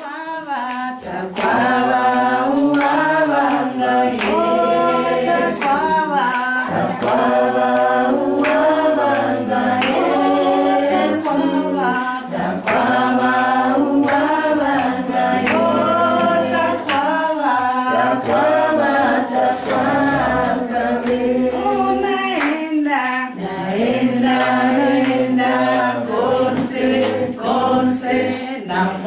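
A choir singing unaccompanied, one song going on without a break.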